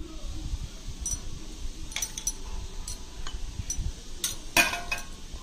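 Metal spoon clinking against a glass dish while spreading cream over soaked bread: a scatter of light clicks and taps, the loudest about four and a half seconds in.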